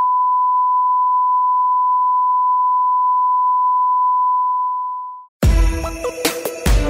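Steady single-pitched test-pattern beep, the reference tone of a TV colour-bar screen, held for about five seconds before it fades away. Music with a heavy beat comes in near the end.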